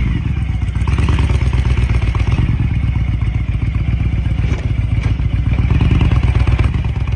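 2005 Honda VTX 1300's V-twin engine running with newly fitted Cobra slash-cut slip-on exhausts: a steady, deep rumble of firing pulses that swells a little toward the end.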